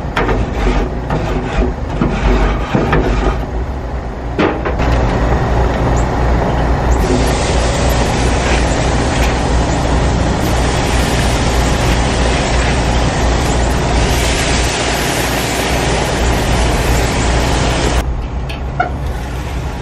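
Steady wind rumble on the microphone over a gas grill, with a few scrapes and clicks from a wire brush on the metal grates in the first few seconds. From about seven seconds in a brighter hiss grows louder as steak sizzles on the hot grates, and it drops back near the end.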